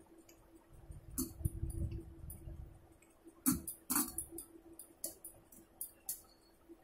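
A hand mixing rice with dal and curry on a steel plate: soft squishing and scraping, with several sharp clinks against the metal, the two loudest about half a second apart near the middle. A faint steady hum runs underneath.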